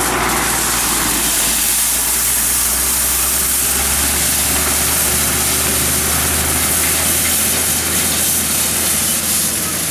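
Tractor engine running steadily under a constant high hiss.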